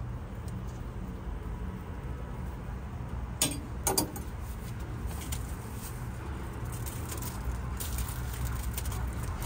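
Steady low rumble of street background noise, with two sharp clacks about three and a half and four seconds in and lighter clicks near the end.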